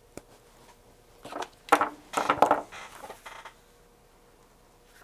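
Hands handling small robot-kit parts and a paper instruction sheet on a wooden workbench: a light click near the start, then a couple of seconds of irregular rustling and knocks, loudest about halfway through.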